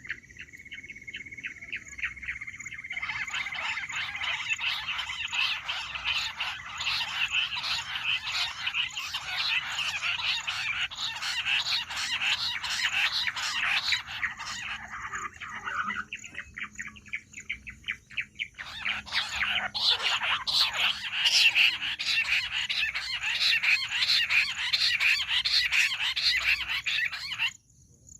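Bush quail calling: a single held whistle opens into a rapid, dense chattering of whistled notes. The calls pause for about three seconds midway, start again, and stop abruptly near the end.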